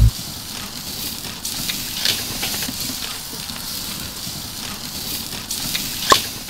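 Steak searing on a grill over open flames: an even sizzle and hiss with scattered crackles. It opens on a low thump and has one sharp pop near the end.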